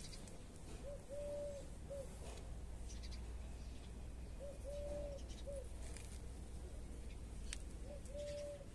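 A dove cooing: a three-note phrase, short, long and short, repeated three times about three and a half seconds apart, over a low steady hum.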